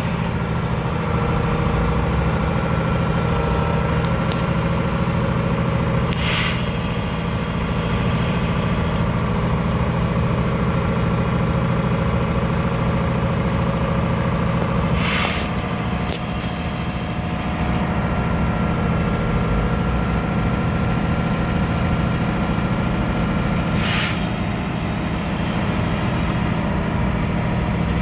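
Freightliner M2 truck's diesel engine idling steadily, with three short hisses of air from its air system, about nine seconds apart.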